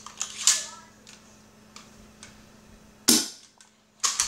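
A BB rifle's cocking mechanism being worked by hand: a few sharp mechanical clacks, the loudest about three seconds in.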